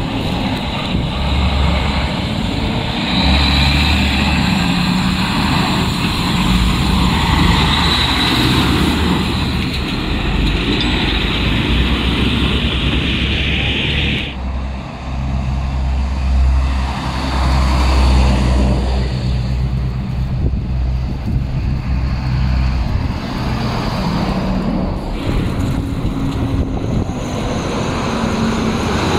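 Heavy truck's diesel engine running as a tractor-trailer pulls through an intersection and drives off, over street traffic noise. The sound changes abruptly about halfway through.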